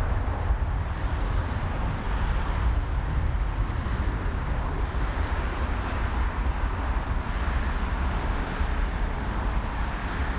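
Strong gusty wind buffeting the microphone: a steady low rumble that flutters, with a broad rushing hiss over it.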